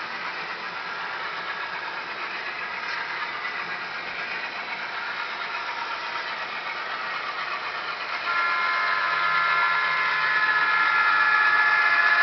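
A model railroad diesel locomotive running on the layout, giving a steady mechanical whir. About eight seconds in it gets louder as the locomotive draws near, and a steady whine joins in.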